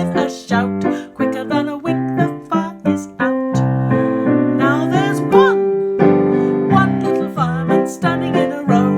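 Piano playing a lively tune, with notes struck several times a second.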